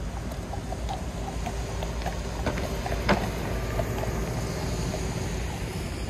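Steady low rumble of road traffic, with faint scattered ticks and two sharper clicks near the middle.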